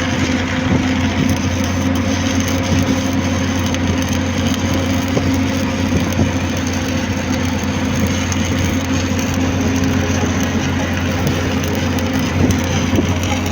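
Stick-welding arc crackling steadily as a rod burns, over a steady low hum from the welding current.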